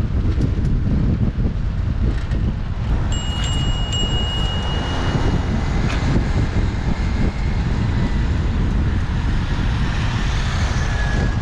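Wind rushing over a helmet-mounted action camera's microphone while riding a bicycle fast through city traffic. A bell rings twice, about three and four seconds in, and its ring lingers for a couple of seconds.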